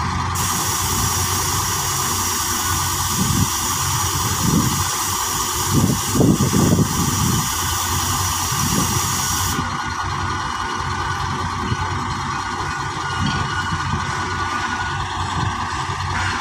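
Heavy diesel engines idling steadily. A high, even hiss starts almost at once and cuts off suddenly about nine and a half seconds in, with a few low thumps in the middle.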